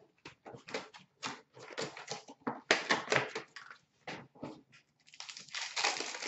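Upper Deck SP Authentic hockey card packs being torn open by hand: irregular crinkling and tearing of the pack wrappers, with a longer stretch of rustling near the end.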